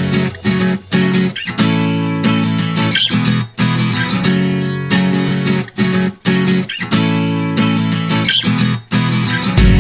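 Background music: strummed acoustic guitar playing a steady, rhythmic chord pattern.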